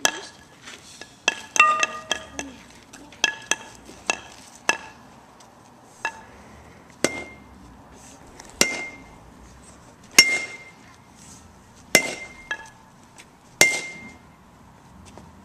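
Baseball bat striking a pile of smashed pumpkin pieces again and again. Each hit is a sharp knock with a short ringing ping. More than a dozen hits come close together in the first few seconds, then one every second or two.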